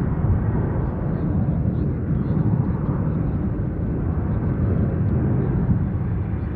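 Large jet airliner's engines rumbling steadily at close range, a dense low rumble that eases off slightly towards the end.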